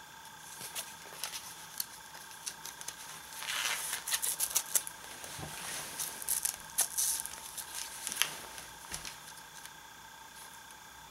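Handling noise of a plastic Kabutick toy wrist device being strapped on: small plastic clicks and taps, with a few louder scratchy rasps from its fabric strap being pulled and fastened between about three and seven seconds in.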